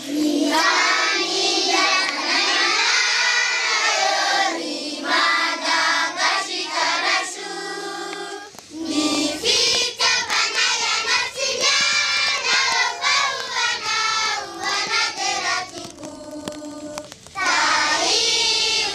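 A group of children singing together in chorus. About eight seconds in, the recording changes and a noisier background comes in under the voices.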